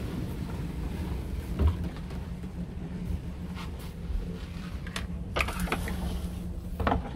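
Steady low hum and rumble of a sailing yacht under way, heard from inside its cabin, with a few short knocks and creaks.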